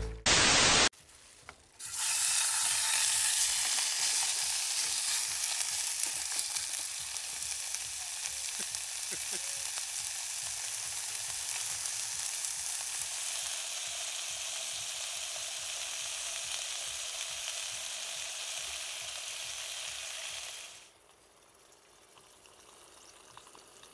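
Pork belly strips sizzling in a frying pan on a portable gas stove: a steady sizzle that cuts off suddenly about 21 seconds in. A brief loud burst of noise comes about half a second in, just before the sizzle starts.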